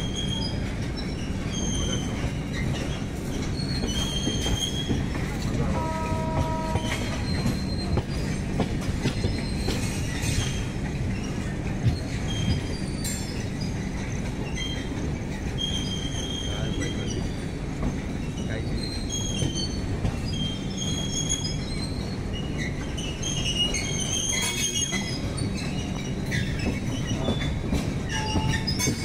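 A train running on rails, heard from on board: a steady rumble of wheels with many short, high squeals of wheel on rail. A brief horn-like tone sounds about six seconds in.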